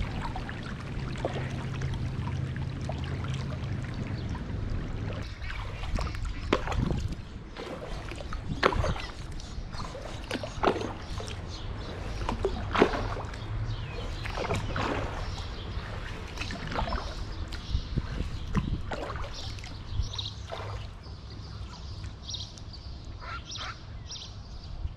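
Double-bladed kayak paddle dipping into the water stroke after stroke, with splashes and drips off the blades every second or two, over a steady low hum.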